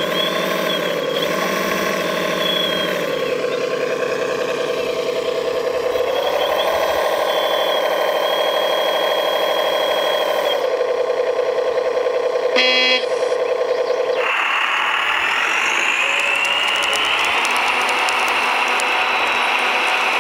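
RC scale truck's simulated diesel engine sound, thin and without bass, revving up and settling twice. A short horn toot about two-thirds of the way in. Then the engine sound cuts out and a higher mechanical whirring takes over, with a thin rising whine near the end.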